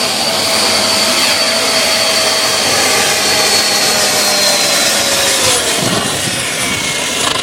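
Homemade jet engine running loudly: a rushing noise with a whine that slowly falls in pitch over about five seconds, and the sound changes character near the end.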